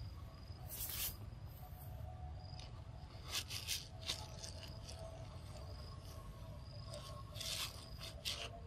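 Forest ambience with faint, steady insect calls and a low background rumble, broken by several short rustles, the loudest a quick cluster about three and a half seconds in and another near the end.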